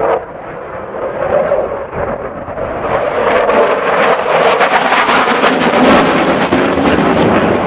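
Saab Gripen C fighter's single Volvo RM12 jet engine, loud, its roar swelling about three seconds in into a harsh crackling rasp as it passes.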